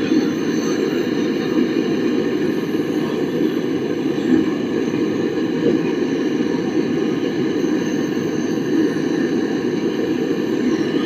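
Steady roar of a gas brazing torch flame, brazing the copper pipe joints of a newly fitted fridge compressor.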